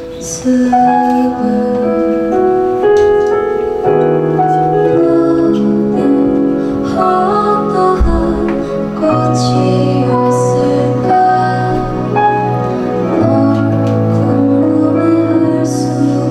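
A woman singing live into a microphone with a band: electric guitar, bass and drums. A low bass line comes in about four seconds in, and cymbals splash now and then.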